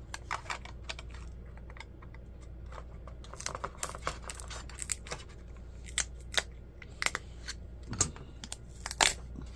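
Irregular small clicks and taps of a laptop being taken apart by hand: plastic and metal parts and a small tool being handled, with a cluster of louder clicks near the end, over a steady low hum.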